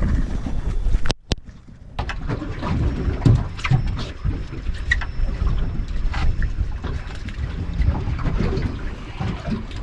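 Wind buffeting the camera microphone on a drifting open boat, mostly a low rumbling noise, with scattered knocks from gear and feet on the deck. The sound drops away abruptly for nearly a second just after the start.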